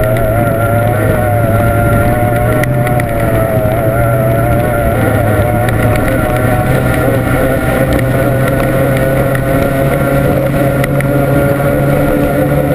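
Formula 1 powerboat's racing outboard engine running at a steady pitch, heard from on board, with a slight waver in pitch during the first few seconds.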